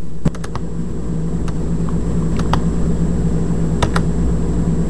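A handful of sharp clicks from working a laptop's controls while a file is picked for upload: a quick cluster near the start, then single clicks about a second apart. A steady low hum runs underneath.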